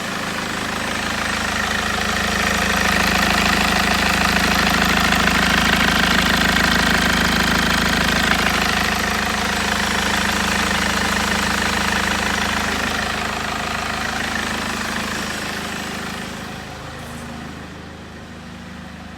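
Mercedes W204's OM646 four-cylinder common-rail diesel engine running during a leak check after repair work. It grows louder over the first few seconds, holds, then gradually gets quieter in the second half.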